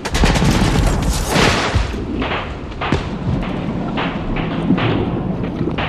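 A series of loud booms: a rapid cluster in the first two seconds, then single ones about every half second to second.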